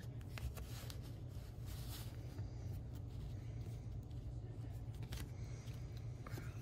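Faint clicks and rustles of Donruss trading cards being slid off a stack and handled one after another, over a steady low hum.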